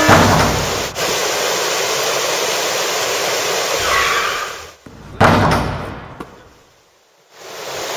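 Rushing water of river rapids, a loud steady rush. It breaks off about five seconds in, comes back suddenly, then fades almost to nothing before returning near the end.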